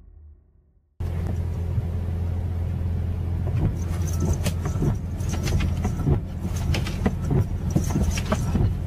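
Inside a car's cabin: a steady low engine hum with windshield wipers sweeping the glass, and irregular taps and knocks against the windshield as a cat paws at the wipers.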